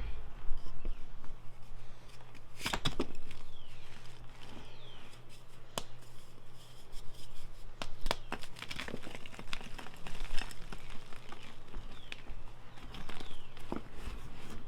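Blocks of Ader gym chalk, mixed with holi powder and glitter, being crushed: uneven crunching and crumbling, with a few sharper cracks about three, six, eight and ten seconds in.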